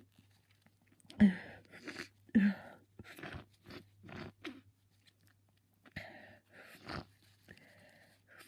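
A run of stifled sneezes, held in so they come out as short muffled bursts through the nose and mouth. The two strongest come about a second apart, each with a brief catch of voice, and several weaker ones follow over the next few seconds.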